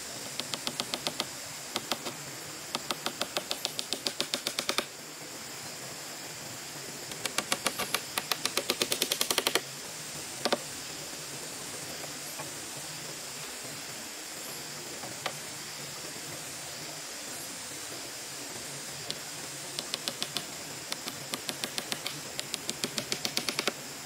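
Rapid trains of sharp clicks, about eight a second, in several bursts of one to three seconds, some getting louder before stopping abruptly, with a few single clicks between them, over a steady high hiss.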